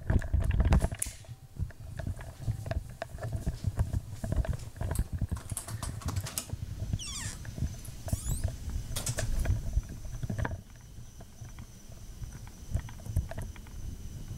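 Camera handling noise, clattering knocks and footsteps as someone hurries outdoors with the camera. About ten seconds in it drops to a quieter night background with a steady high insect chirring.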